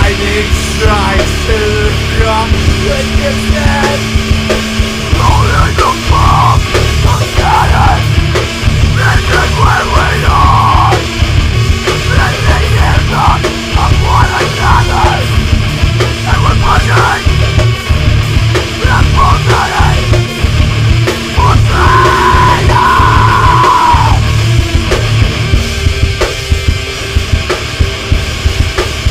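Metalcore band recording with distorted guitars, bass, keys and heavy, dense drums, mastered very loud. The full low end of drums and bass comes in about five seconds in.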